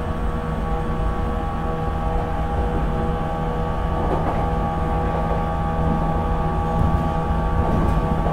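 Running sound inside a JNR 475 series express-type EMU motor car, heard from its deck: the MT54 DC traction motors and 19:80 gear mesh give several steady whining tones over a constant rumble of wheels on rail, with the train at an even speed.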